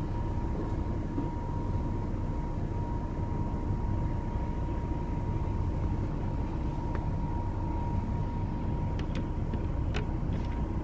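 Steady low rumble of shipboard machinery, with a faint steady whine over it. A few light clicks come near the end as the pan is picked up.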